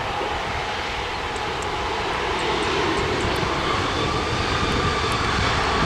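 ATR 72-600 twin-turboprop airliner rolling out on the runway just after touchdown, its engines and propellers running with a steady whine that rises a little in pitch midway and grows slightly louder near the end.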